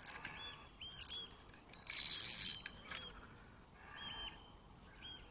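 Spinning fishing reel and line being worked as a seaweed-fouled lure is wound in: scattered clicks and a short rasping hiss about two seconds in. Short repeated bird chirps sound throughout.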